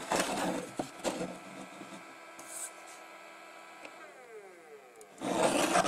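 Scratchy rubbing and handling noises over a steady electrical hum, with a louder rasping burst near the end.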